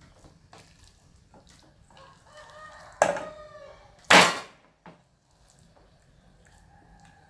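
A rooster crowing, a call with several gliding pitch lines that turns loud about three seconds in and ends in a harsh, loudest note about a second later. Faint scattered clicks sound through the rest.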